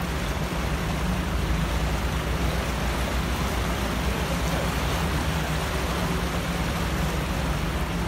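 A vehicle engine droning steadily under a continuous rush and churn of floodwater as wheels push through it.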